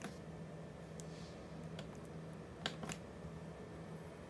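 A few light clicks from the front-panel buttons of a Bell Home Hub 4000 modem being pressed: one at the start, one about a second in, and two quick ones close together later on, over a faint steady hum.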